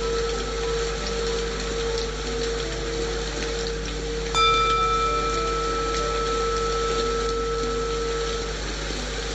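Steady rain-like white noise under a low held tone. About halfway through, a singing bowl is struck once and rings with several overtones, fading away over about four seconds; in this breathing exercise each bowl strike is the signal for the next breath.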